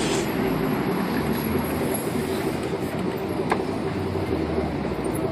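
Steady rumble of city street traffic, with one sharp click about three and a half seconds in.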